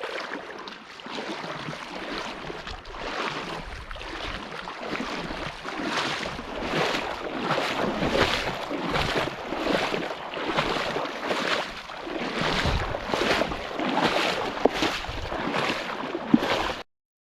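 Rhythmic splashing of water, about three strokes every two seconds, growing somewhat louder and then cutting off abruptly near the end.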